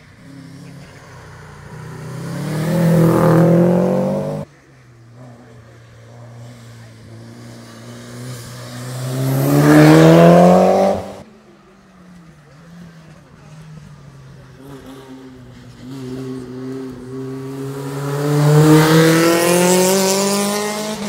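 Three competition cars in turn accelerate hard up a hill-climb road and pass close by, each engine rising in pitch as it revs and gets louder. The first two are cut off abruptly.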